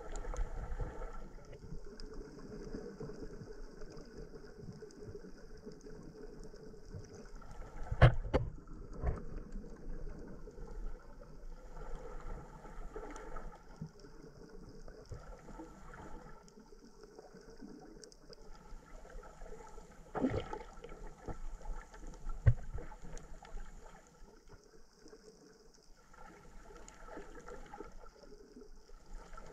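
Muffled underwater sound picked up by a camera submerged in shallow sea water: a low, steady wash of moving water. A few sharp knocks stand out, the loudest about eight seconds in and two more around twenty and twenty-two seconds.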